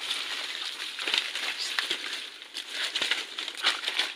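Dry leaf litter and twigs rustling and crackling in irregular bursts, disturbed by movement in forest undergrowth.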